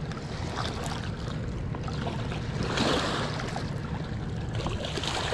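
Water lapping and splashing at a rocky riverbank as a hooked longnose gar is reeled in to the shore, with a louder rush of splashing about three seconds in over a steady low rumble.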